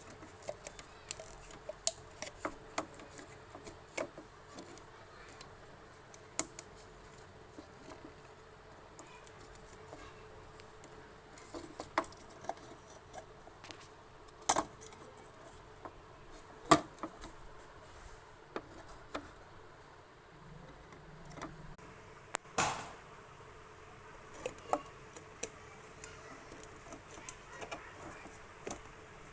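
Irregular small clicks and taps, a few of them sharper knocks, over a faint steady hum.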